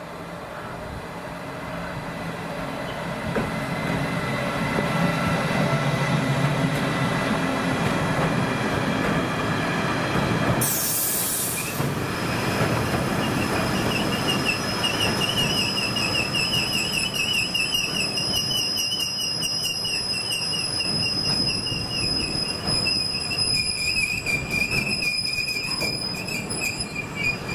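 Siemens Vectron electric locomotive approaching and passing with a freight train of flat wagons, its low hum building over the first few seconds. A brief loud hiss comes about eleven seconds in. The wagons then roll past with a high, wavering wheel squeal and a run of clicks from wheels over the rails.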